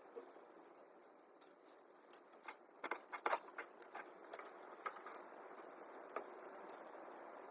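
Scattered irregular clicks and clinks of hand tools and metal parts being handled, loudest in a cluster about three seconds in, over a faint steady hiss.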